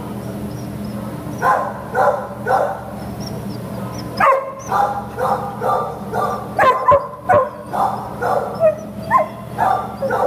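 A dog barking and yipping in short, pitched calls. They start about a second and a half in and come in a quicker run from about four seconds on, over a steady low hum.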